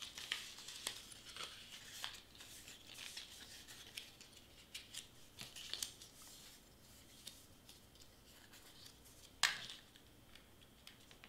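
Faint rustling and small clicks of cardstock pieces being moved, folded and pressed by hand, with one louder tap about nine and a half seconds in.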